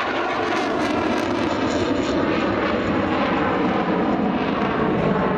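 Saab JAS 39 Gripen fighter's single jet engine, a steady loud rush as the jet flies a display manoeuvre.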